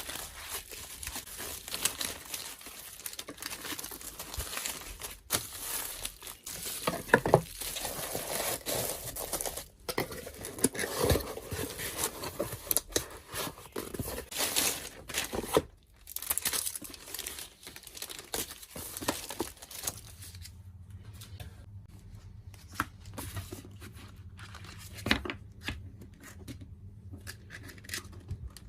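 Hands working with washi tape and packaging: tape being pulled off and torn, with paper and plastic crinkling and rustling. About two-thirds of the way through it turns quieter, leaving scattered light clicks and taps.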